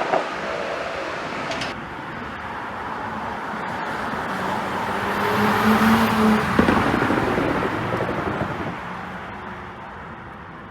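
Porsche Cayenne's 3.0-litre turbocharged V6 and tyres driving past, swelling to a peak about six seconds in and then fading away, with one sharp exhaust pop from the pop-and-bang ECU tune near the loudest point.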